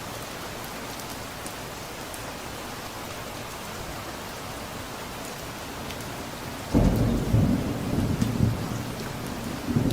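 Steady rain falling, with scattered drop ticks. About two-thirds of the way through, a sudden loud clap of thunder breaks in and rumbles on to the end, swelling again near the end.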